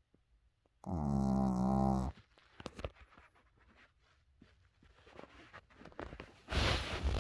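Snoring: a loud, pitched snore about a second in, lasting just over a second, then a breathy, rasping snore breath starting near the end.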